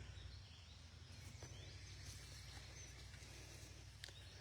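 Near silence: faint outdoor ambience with a steady low hum, a few faint bird chirps and a couple of faint clicks.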